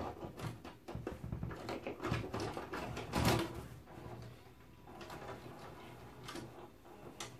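VCR loading a VHS cassette: a run of mechanical clicks and clunks as the mechanism takes the tape in, with the loudest clunk about three seconds in, then a few softer clicks.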